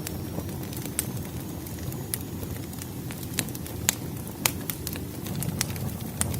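Campfire crackling: irregular sharp pops and snaps over a steady low rumble of burning wood.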